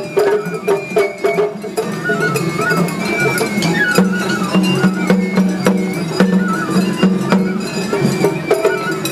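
Traditional-style instrumental background music: a melody stepping up and down over a held low note, with frequent light percussive strikes.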